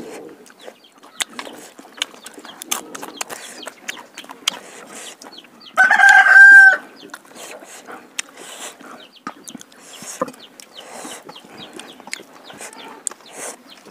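A rooster crows once, loud and about a second long, starting a little before six seconds in. Around it are many small clicks and mouth sounds of someone eating rice with the fingers from a steel plate.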